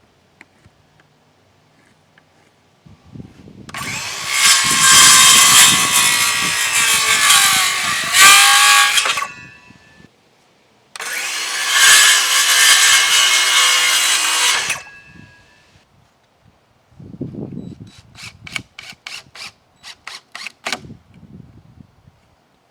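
Electric power saw cutting through wooden boards twice, each cut lasting about five seconds, its motor pitch sagging as the blade bites in. Near the end comes a run of short, sharp strokes, about three a second.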